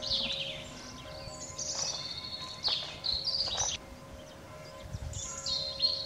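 Evening birdsong: several songbirds chirping and singing in quick high notes and short trills, over a faint steady tone.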